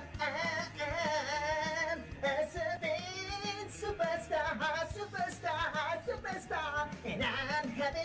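A high voice singing a song, its notes wavering and gliding, over steady low backing notes.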